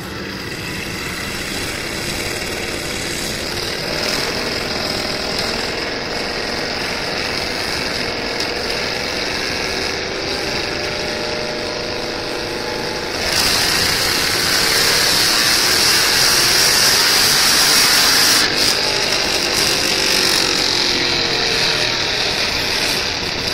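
Ford SVT Lightning pickup's supercharged V8 running hard on a chassis dyno, its rear wheels driving the rollers. About thirteen seconds in it gets louder, with a strong high whine and hiss that holds until near the end.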